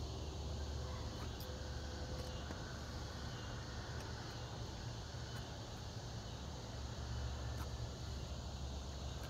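Steady outdoor ambience: insects chirring over a low, even rumble.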